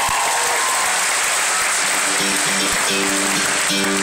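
Live concert audience applauding loudly. About halfway through, the band starts playing, with held instrumental notes sounding over the applause.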